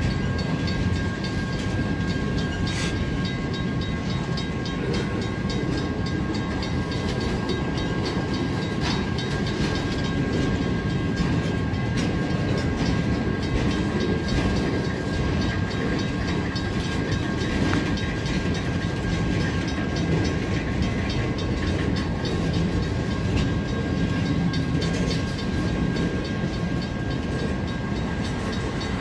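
Empty railroad flatcars of a military train rolling past, a continuous rumble of steel wheels on rail with regular clicking over the rail joints. A thin steady high tone runs above it.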